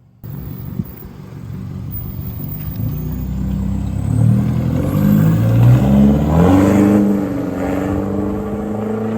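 Isuzu 4JJ3 3.0-litre four-cylinder turbo diesel revving through a 3-inch turbo-back exhaust with a resonator in place of the DPF. The revs climb in several steps and blips over a few seconds, then hold high toward the end.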